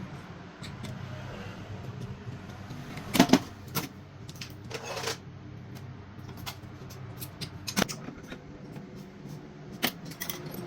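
Scattered clicks and clinks of metal tools and parts being handled, the loudest a quick double knock about three seconds in, over a steady low hum.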